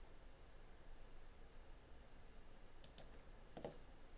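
Faint computer mouse clicks over near-silent room tone: a quick double click about three seconds in, then a duller single tap.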